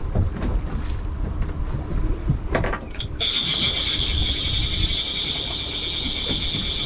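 Outboard boat motor running at slow trolling speed, with wind on the microphone and a few knocks in the first few seconds. About three seconds in, a steady high-pitched whine sets in and holds.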